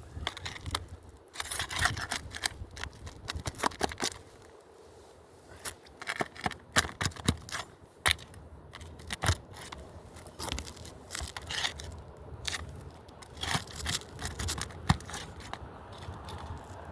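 Asphalt roof shingles being pried loose and nails pulled: scraping and tearing with frequent sharp clicks and cracks, quieter for a moment about four seconds in. The old shingles crack as the nails come out.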